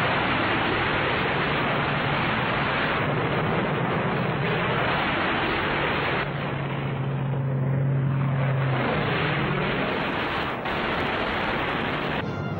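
Steady dense rushing noise with the drone of a propeller aircraft's engine; a little past halfway the engine note holds steady for a couple of seconds, then falls in pitch as the plane goes down.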